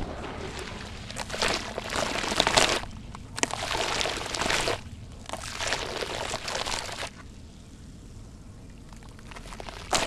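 Wet sand-cement being squeezed and crumbled by hand in a basin of water: three gritty, sloshing bursts as grit and water pour off the lump, then a quieter spell.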